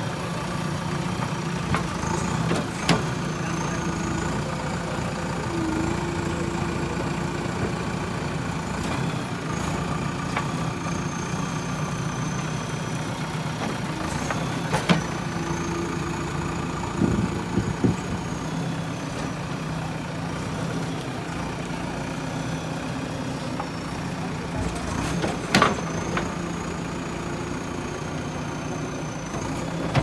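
JCB backhoe loader's diesel engine running steadily as the front loader bucket pushes through mud. A thin high whine wavers in pitch above it, and there are a few sharp knocks.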